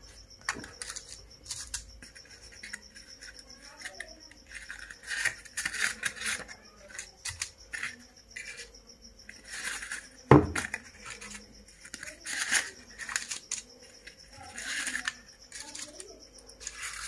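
Paper cupcake liners crinkling and rustling as they are pressed by hand into the cups of a metal cupcake tray, with one sharp thump about ten seconds in.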